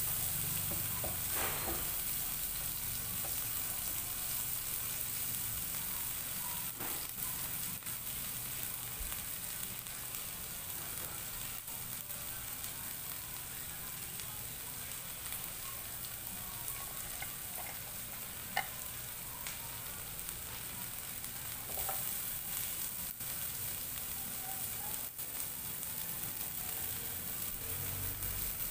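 Tomatoes and aromatics sizzling steadily in hot oil in a nonstick frying pan, with a wooden spatula stirring and a few sharp taps against the pan now and then.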